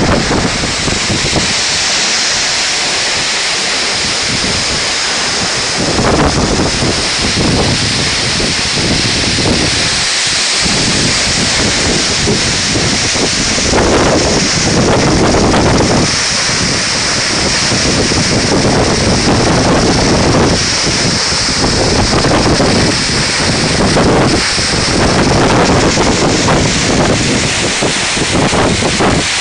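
Waterfall: a loud, steady rush of falling water, with wind buffeting the microphone in irregular gusts from about six seconds in.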